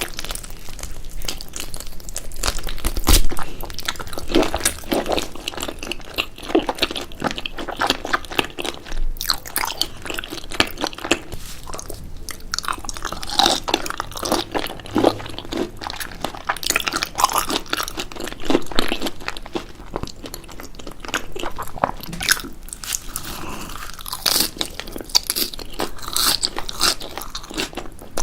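Close-miked eating of soy-sauce-marinated raw shrimp: a steady run of irregular crunching bites and chewing, the loudest crunch about three seconds in.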